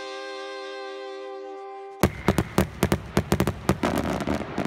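A held musical note rings steadily for about two seconds, then cuts off abruptly. A rapid string of fireworks pops and crackles follows, about a dozen sharp reports in under three seconds.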